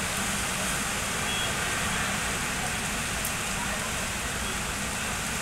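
Rain falling steadily on a city street and rooftops: an even hiss with a low rumble beneath it.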